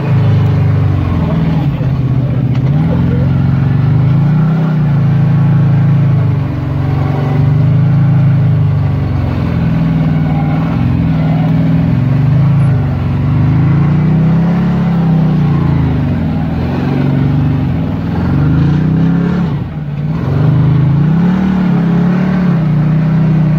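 Side-by-side UTV engine heard from the cab while driving, the revs rising and falling again and again as the throttle is worked. The engine drops off briefly about twenty seconds in, then picks up again.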